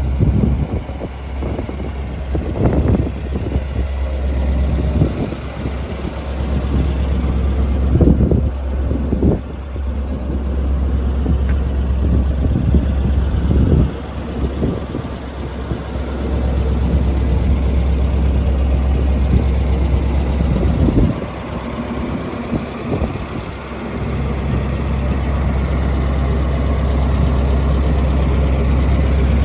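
A 1942 Ford truck's flathead V8 idling steadily, with irregular low rumbles over the engine sound.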